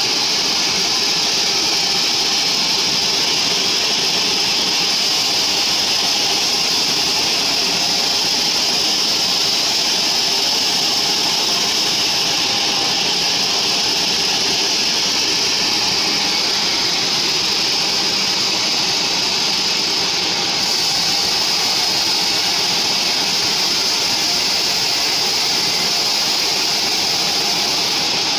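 Large sawmill bandsaw ripping a mahogany beam lengthwise: a loud, steady machine drone with a high hiss from the blade cutting the wood.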